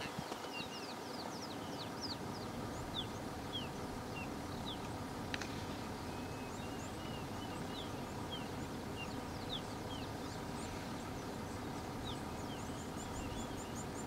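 Birds calling in the background, many short whistled chirps and quick sweeps, over steady low outdoor background noise; a single sharp click about five seconds in.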